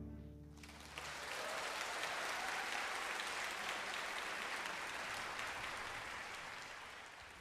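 An orchestra's last chord dies away, and about a second in an audience bursts into applause that carries on steadily and fades toward the end.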